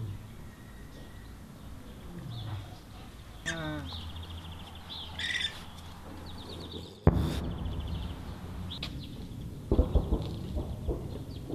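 Songbirds chirping and trilling. About seven seconds in there is a sudden loud bang, and near the end a short cluster of low booms from distant shelling.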